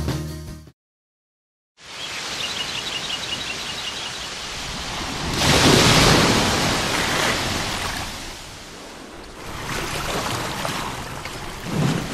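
Music cuts off, and after a second of silence the sea comes in: waves washing on a shore with wind, swelling to a loud surge of surf about five seconds in and easing off again.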